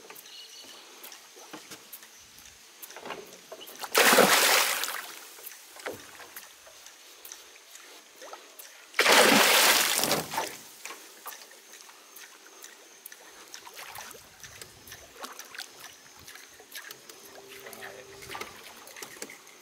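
Two loud splashes of water, about five seconds apart, each starting suddenly and lasting about a second, with faint small knocks and water noise between.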